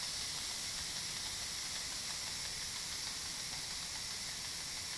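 Pampered Chef Quick Cooker electric pressure cooker venting steam through its pressure-release valve after a manual release: a steady hiss as the pot depressurizes.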